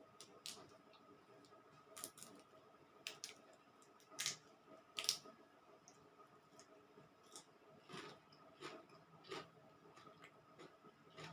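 A person eating green papaya salad, with irregular crunches and clicks of chewing; the loudest come about four and five seconds in.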